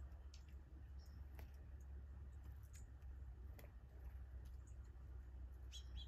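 Faint, scattered short chips and clicks from small birds, a few seconds apart, over a low steady rumble.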